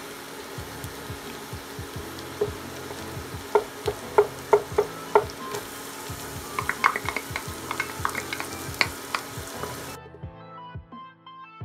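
Garlic sizzling in butter in a stainless steel pot, a wooden spoon stirring and knocking against the pot; chopped shallot goes in about halfway through. Near the end the frying sound cuts off suddenly, leaving only background music.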